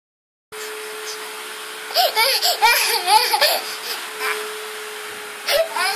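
A small child squealing with laughter in a run of quick, high bursts about two seconds in, and once more near the end, over a steady hum.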